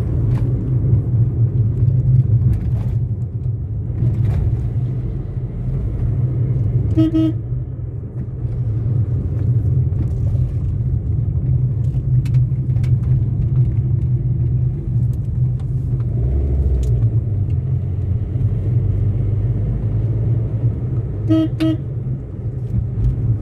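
Steady low rumble of a car driving on the road, heard from inside the cabin. A vehicle horn gives a quick double toot about seven seconds in and again near the end.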